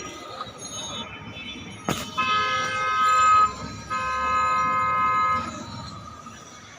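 Two long horn blasts, each a held chord of several steady tones lasting about a second and a half, preceded by a sharp click about two seconds in.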